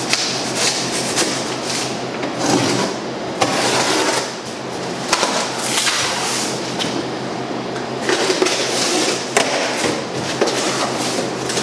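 Cardboard box being opened and its contents handled: continuous rustling and scraping of cardboard and packing, with a couple of sharp knocks, over a low steady hum.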